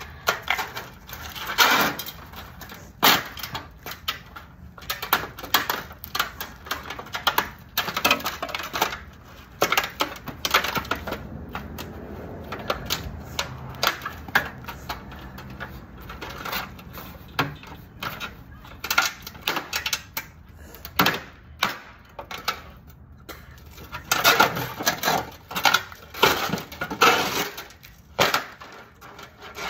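Hard pieces of a broken-up TV clattering, knocking and scraping as they are handled and struck, with many sharp knocks and rattles, thickest near the end.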